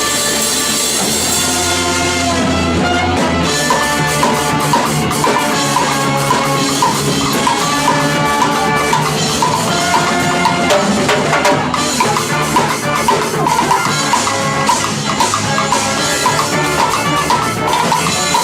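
Ska-punk band playing loud live music, with the drum kit coming in with steady hits about three and a half seconds in under a repeating riff.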